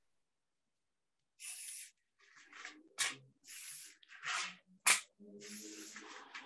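Aerosol non-stick cooking spray hissing in several short bursts as it coats foil tart tins. Two sharp taps come through, about three seconds in and just before the five-second mark.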